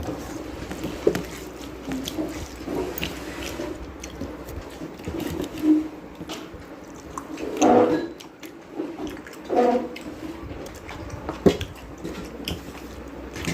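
A person eating by hand: chewing and wet squelching of mixed rice and dal, with scattered small clicks. Two short voiced sounds come about 8 and 10 seconds in.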